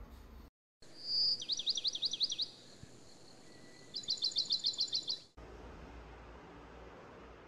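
A songbird singing: a short high whistle, then a run of quick downward-sweeping notes, and after a short pause a faster series of about a dozen sharp notes. The song starts and cuts off suddenly, about a second in and again near the two-thirds mark.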